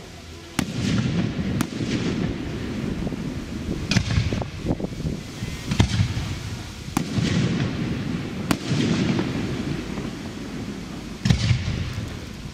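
Aerial firework shells bursting: about eight sharp bangs at uneven intervals, each followed by a low rumbling echo.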